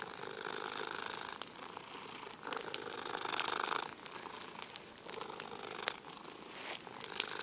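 Domestic cat purring close to the microphone, in two long stretches, with a few sharp clicks later.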